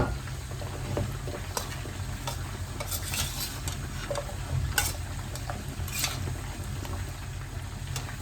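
Chicken pieces frying in hot oil in a pan, sizzling steadily, with a few sharp knocks of a utensil against the pan as the pieces are stirred and turned.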